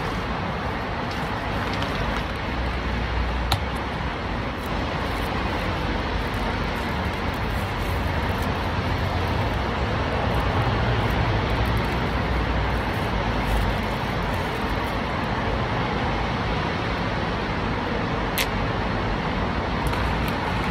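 Steady rumble and hiss of road traffic, with two short clicks: one about three and a half seconds in and one near the end.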